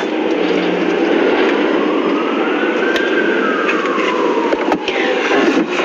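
An emergency vehicle's siren in a slow wail: its pitch rises for about two seconds, falls for about two more, and starts rising again near the end, over steady street traffic noise.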